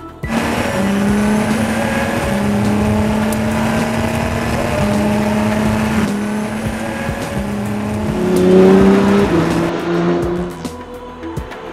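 Race car engine accelerating hard through the gears. Its pitch climbs and drops back at each upshift, about five times. It is loudest a little past halfway, then falls away near the end.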